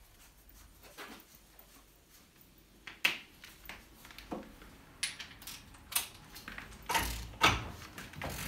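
Scattered clicks and clunks of metal hand tools and parts being handled at a workbench while a bolt and socket are set up in a bench vise. One sharp click comes about three seconds in, and a heavier run of knocks with a dull thump comes near the end.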